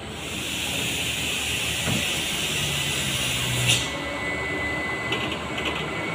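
A steady hiss that stops with a click near four seconds, over the low running of a medium truck's diesel engine on the road.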